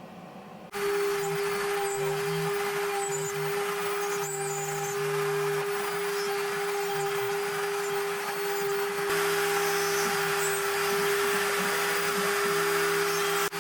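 Electric sander running steadily on a wooden board, a constant motor tone over a noisy hiss. It starts abruptly about a second in and cuts off just before the end.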